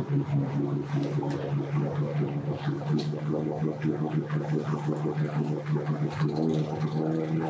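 Boat engine running at a steady low speed, an even drone that holds one pitch throughout.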